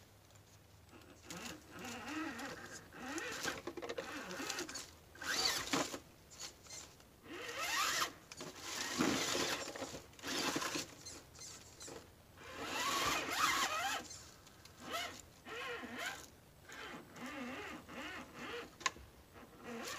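Axial UMG10 RC rock crawler's electric motor and geared drivetrain whining in bursts of a second or two, the pitch rising and falling with the throttle, among short clicks and scrapes.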